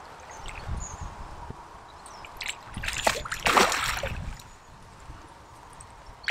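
Water sloshing and splashing in uneven bursts, loudest about three to four seconds in.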